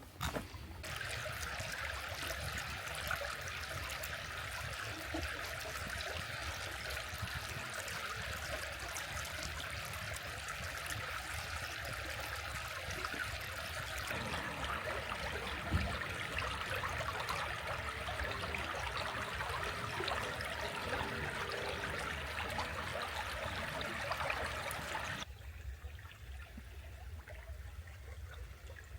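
Flowing stream water trickling steadily, a constant rushing hiss that stops suddenly near the end.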